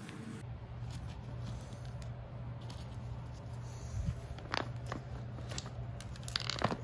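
A few light clicks and taps of metal lathe parts being handled and fitted, about four seconds in and again near the end, over a steady low hum.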